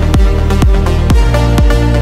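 Background electronic dance music with a steady kick drum, about two beats a second, over a sustained bass line.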